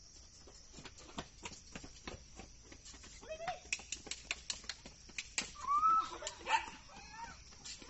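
A small dog whining and yelping a few times in the second half, the loudest cry about six seconds in, after a run of quick sharp clicks.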